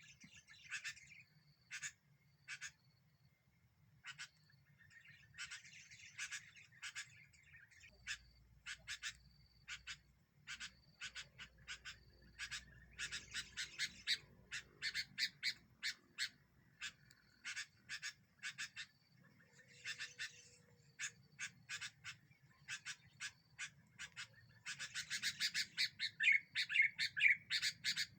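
Sooty-headed bulbuls (kutilang) calling in strings of short chirps, scattered at first and coming thick and loud in the last few seconds.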